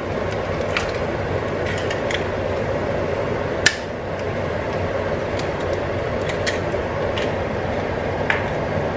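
Slices of sucuk frying in oil in a nonstick pan, a steady sizzle, as eggs are cracked and dropped in, with scattered sharp taps and pops; the sharpest crack comes about three and a half seconds in.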